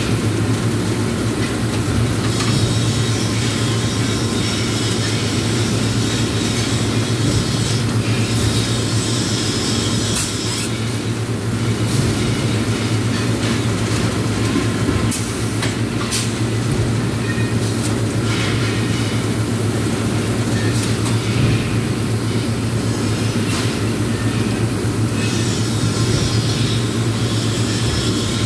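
Submerged arc welding equipment running: a steady low electrical hum with a rushing noise over it. Patches of high crackle and a few sharp clicks come and go through it.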